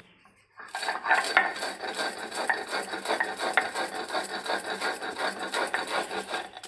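Stone roller grinding dry-roasted whole spices and dried red chillies on a flat stone slab (Bengali shil-nora): a continuous gritty scraping and rubbing full of small crackles as the seeds are crushed, starting about half a second in.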